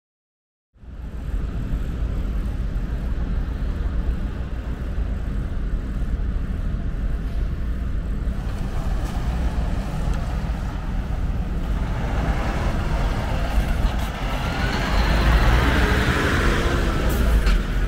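Truck and road-traffic noise with a steady low rumble, starting abruptly after a moment of silence; a vehicle grows louder and passes in the last few seconds, with a few sharp clicks near the end.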